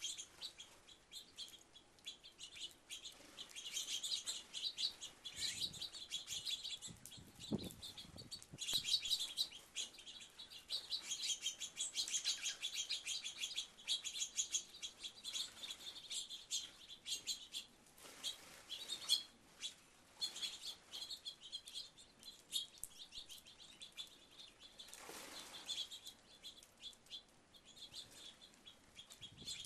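A flock of small birds at a feeder chirping rapidly and continuously, with bursts of wingbeats as birds fly in and out.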